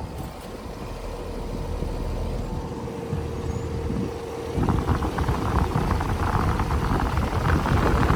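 Carrier Infinity outdoor air-conditioner condensing unit running: a steady hum that grows louder, then a much louder rush of air from the condenser fan from about halfway through.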